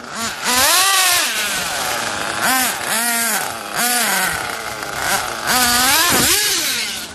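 Small nitro engines of radio-controlled off-road buggies revving hard. The high engine note rises and falls about five times as the cars accelerate and lift off.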